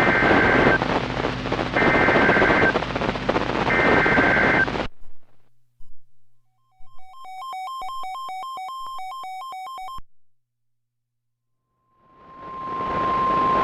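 NOAA Weather Radio alert sequence received over static. Three bursts of SAME digital header data play about a second apart, then the audio cuts off. A weather radio's own alarm beeps in a rapid two-pitch pulse, about four beeps a second, for about three seconds. After a pause, the steady warning alert tone fades in with the static near the end.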